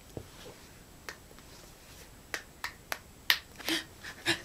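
A tiny ping pong ball bouncing on a miniature paddle: a run of about nine light, sharp clicks. They are sparse at first, then come quicker, about three a second, near the end.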